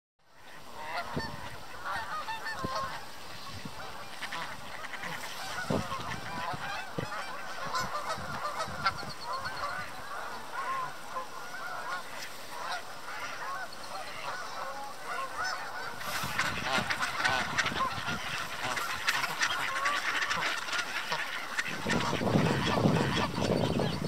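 A flock of Canada geese honking and calling, many calls overlapping, with mallard ducks quacking among them. The calling grows louder and denser about two-thirds of the way through, and a low rumble joins near the end.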